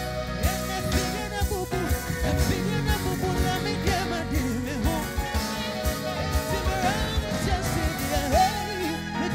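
Live band playing with a voice singing over it: electronic keyboard, bass and a steady drum beat.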